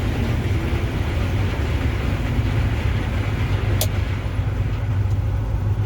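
Grain combine harvester running steadily, a low engine drone with threshing noise and the header still going. A single sharp click comes a little under four seconds in.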